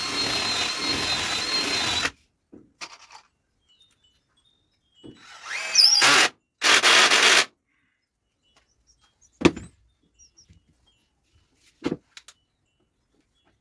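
Power drill running in three short bursts, the first a steady whine of about two seconds, the second spinning up with a rising pitch. Later come two sharp knocks a couple of seconds apart.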